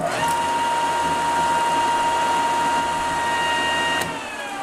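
Grizzly G0891 15-inch, 3 hp spiral-cutterhead planer starting up abruptly and running with a steady whine. About four seconds in it is switched off with a click and begins to wind down, its pitch falling. This is a test run after fitting an idler pulley to take up slack in the feed-roller drive chain, and it runs fine, without skipping.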